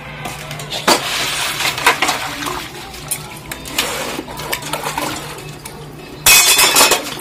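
Stainless-steel bowls, plates and a spoon clinking against each other while being washed and rinsed in a bucket of water, with splashing. A louder clatter of noise comes near the end.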